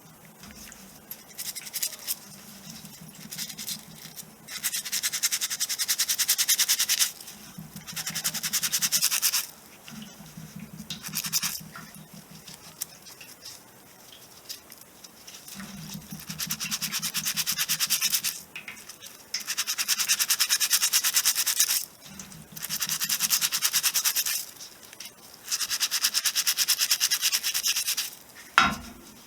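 A brush scrubbing metal driveshaft parts clean, in repeated bursts of quick back-and-forth strokes lasting two to three seconds each, with short pauses between them.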